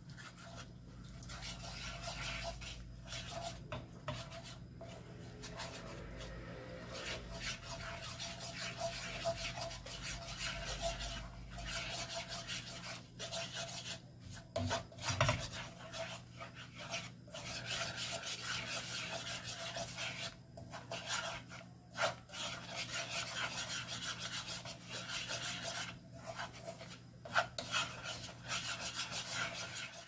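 Wooden spoon stirring and scraping thick, simmering red chili sauce around a nonstick frying pan, a continuous scratchy rubbing with many small strokes, over a faint low steady hum.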